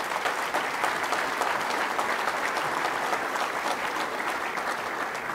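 Audience applauding, a steady clapping that begins to taper off at the end.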